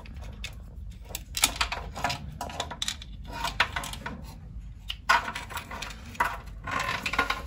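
Metal engine parts and hand tools clinking and rattling, an irregular run of short metallic clicks as parts are handled during an engine teardown.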